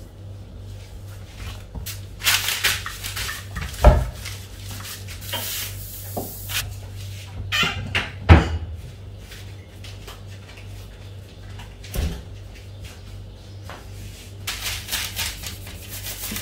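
Hands working fondant and baking tools on a granite worktop: scattered rustling and scraping, with two sharp knocks about four and eight seconds in and a fainter one near twelve seconds, over a low steady hum.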